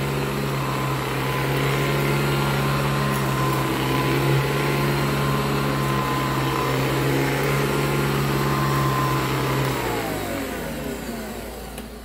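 Hoover Decade 80 upright vacuum running on carpet with a chattery noise, which the owner puts down to the brushroll; he suspects its bearings were worn by carpet freshener powder. About ten seconds in it is switched off, and the motor winds down with its pitch falling.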